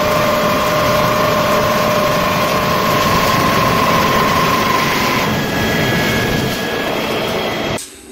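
Automatic CNC wood-turning lathe running and cutting wood: a dense machine noise with steady whining tones, the whine shifting higher about five seconds in. It cuts off abruptly near the end.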